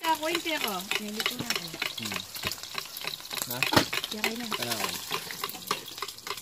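Spatula scraping and tapping against a frying pan over food sizzling, with many quick clicks as the food is stirred and turned.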